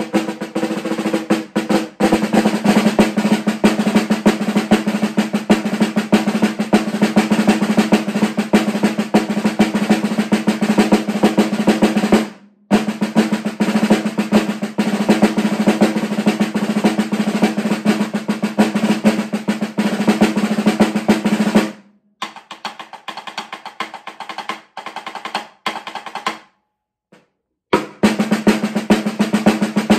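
Marching snare drum played with sticks in a rudimental corps-style solo: fast, dense accented strokes and rolls. There is a short break about twelve seconds in, then a softer, sparser passage and a brief pause before loud, dense playing returns near the end.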